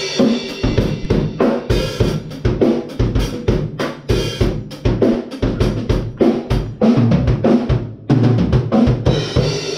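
Sonor acoustic drum kit played in a steady, driving groove: bass drum, snare and cymbals struck several times a second without a break.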